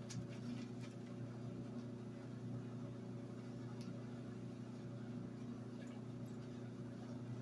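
Steady low electrical hum from an appliance, with a few faint rustling clicks of kale leaves being handled on a wooden cutting board.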